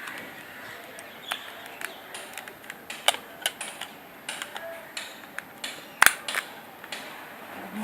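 Irregular small plastic clicks and taps as a battery is pressed into a flip phone and its parts snapped into place, with the sharpest click about six seconds in.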